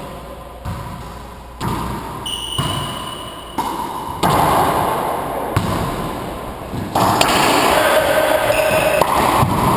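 Racquetball ball smacking off the walls and floor and off the racquets, a series of sharp echoing impacts in an enclosed court. A louder, noisier stretch with a short squeak-like tone comes in about seven seconds in.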